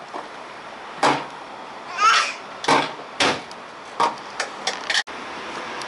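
A string of sharp knocks and clacks as children handle plastic toy dishes against the wooden walls and floor of a wooden playhouse, with a quick cluster of clacks near the end. A child makes a brief vocal sound about two seconds in.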